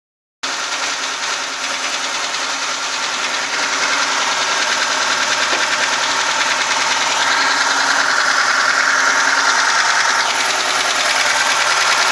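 VAZ-2106 engine running with a rapid, even ticking from the valve rocker arms. The owner takes it for rocker knock after a fresh engine rebuild.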